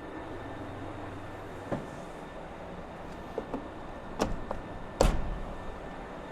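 A handful of sharp knocks over a steady low hum, the loudest with a heavy thud about five seconds in, during work on a steel excavator bucket and its tooth.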